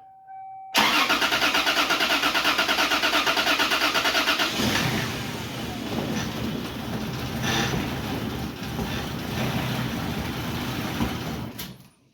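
Toyota 2JZ inline-six cranking over with a fast, even starter rhythm for a few seconds, then catching and running unevenly on its first start after a head gasket replacement, before it stops abruptly shortly before the end.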